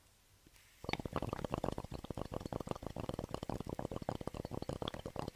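Water bubbling rapidly in a dense stream of small pops and gurgles, starting about a second in.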